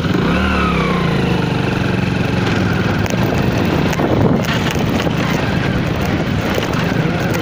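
A motor vehicle engine running steadily, with a tone that falls in pitch about half a second in.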